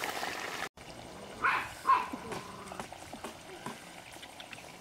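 Whole fish frying in oil in a pan, an even sizzle that cuts off under a second in. Then two short, loud, high calls about half a second apart, followed by faint outdoor quiet.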